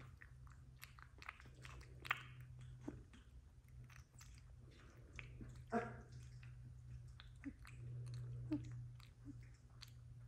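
Young XL American Bully puppy suckling at a baby bottle: faint, irregular wet smacks and clicks of its mouth on the nipple, with a couple of sharper smacks. A steady low hum runs underneath.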